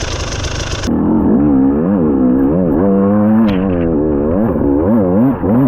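Enduro dirt bike engine revving up and down in repeated quick throttle blips, the pitch swooping about twice a second. It is cut in abruptly about a second in after a noisier stretch of engine sound.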